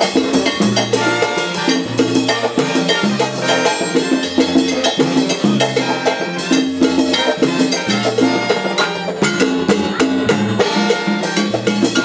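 Live salsa band playing: a bass line stepping through a repeating figure under timbales, cymbals and drums, with piano and horns including trumpet.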